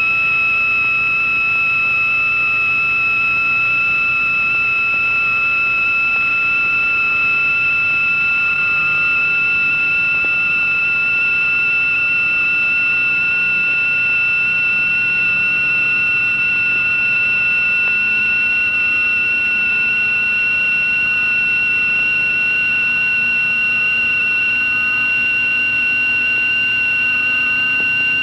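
A steady, high electronic sine-wave tone, sliding very slowly and evenly upward in pitch, with a faint hiss beneath it.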